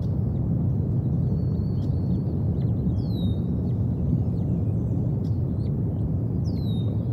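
A songbird calling in the trees: a clear whistle sliding down and levelling off, heard twice about three and a half seconds apart, with a few faint chips between. Under it is a steady, low rushing noise.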